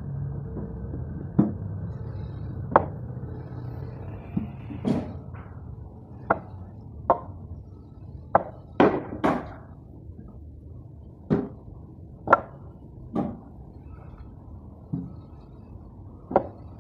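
Sawn walnut wood blocks knocking against one another as they are set down by hand onto a stack. About fourteen sharp wooden knocks come at irregular intervals, over a low steady hum.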